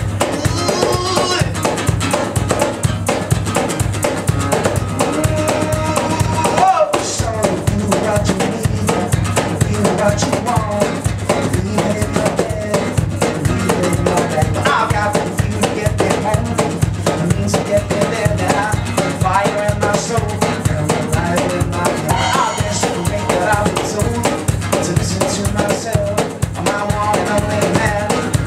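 Live acoustic music: a steel-string acoustic guitar strummed hard, driven by a steady cajón beat slapped by hand, with a man's singing voice over it. The whole band cuts out for a moment about seven seconds in, then picks up again.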